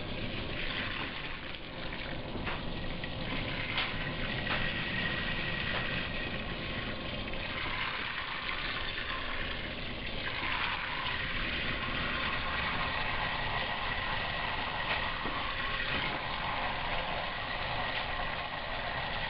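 Water running steadily from a tap into a kettle, filling it.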